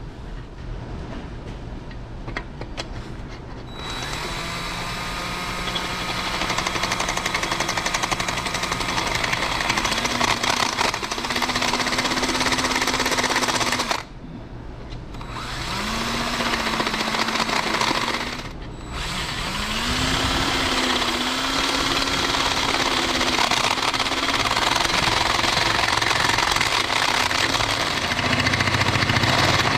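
A drill spins a homemade mild-steel facing cutter over a guide pin, shaving the top of a Ford manual transmission's repaired clutch fork pivot ball boss flat. The motor's pitch dips and recovers as the cutter bites. It starts about four seconds in and stops briefly twice, about halfway through and again a few seconds later.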